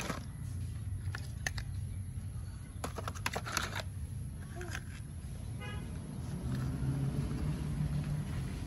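Small clicks and knocks of plastic toy cars being handled and pulled out of thick mud, coming in clusters about a second and a half in and around three seconds in, over a low steady hum.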